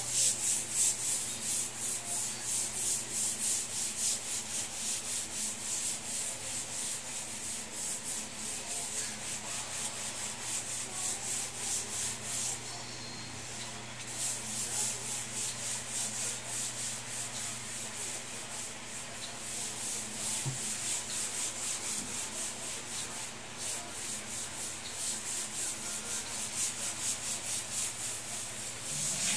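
A cloth rag rubbed hard back and forth over a wood-look plank floor by hand, making a fast rhythmic scrubbing hiss of several strokes a second. It stops for a moment around the middle, then goes on.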